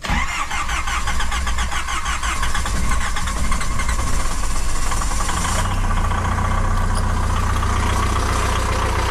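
Car engine started with its mass airflow sensor unplugged, catching at once and running unevenly for a few seconds before settling into a steady idle about five seconds in. Unplugging the sensor is the driver's fix for hard starting in the cold at high altitude.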